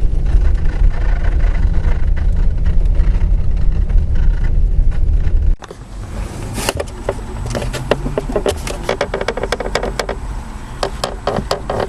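Chevrolet Caprice on the move, with a steady low rumble of road and driving noise. About halfway through the rumble stops suddenly. It gives way to a quieter run of irregular creaks, clicks and short squeaks from the car's body or suspension, the squeak-and-creak fault the owner is chasing.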